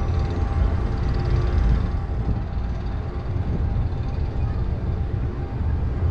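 Vekoma Boomerang roller coaster lift running as the train is hauled backward up the station-side lift spike: a steady mechanical rumble with a faint hum.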